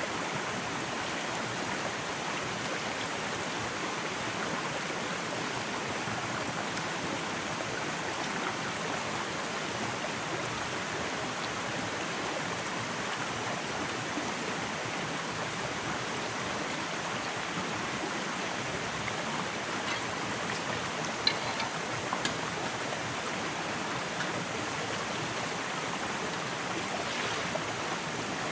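Shallow forest stream running over rocks, a steady rush of water. A couple of sharp clicks stand out about three-quarters of the way through.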